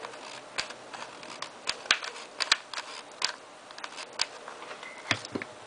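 Irregular light clicks and taps of hands handling craft materials on a work surface, with a duller knock about five seconds in.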